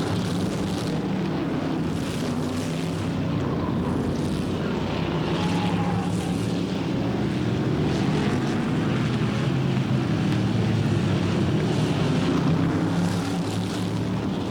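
Several 1960s stock car engines running together at racing speed, a steady layered engine drone.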